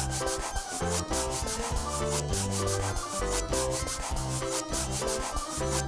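Quick, rhythmic rubbing strokes of a crayon-scribbling sound effect, several strokes a second, over background music with a stepping bass line.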